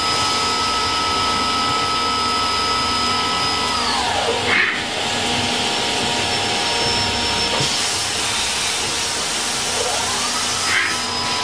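CNC machine running with a high spindle whine over a loud steady hiss; about four seconds in the whine falls away, and near the end it rises back up to its former pitch.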